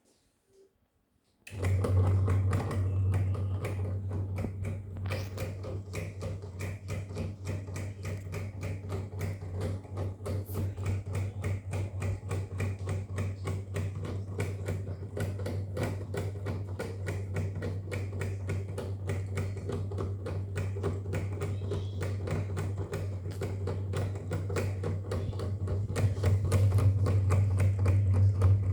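GMC FC0670B mini ceiling fan switching on about a second and a half in, then running with a steady low motor hum and fast, even ticking.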